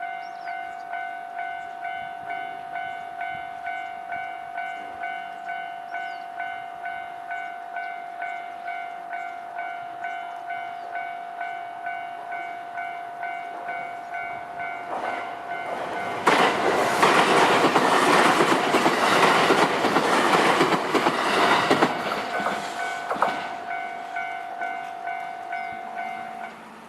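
Electronic level-crossing bell ringing steadily, about one and a half dings a second, while a train passes over the crossing with loud rumble and wheel clatter for about seven seconds in the second half. The bell stops just before the end.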